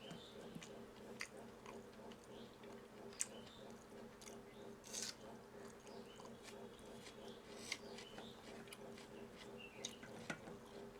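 A person chewing and eating at close range: soft irregular mouth clicks and smacks, with a few brief squelchy smears, over a faint steady hum.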